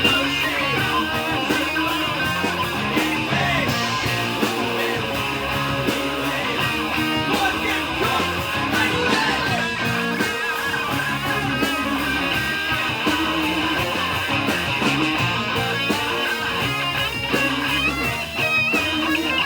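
Indie rock band playing live, led by electric guitar strumming, with bass and drums underneath.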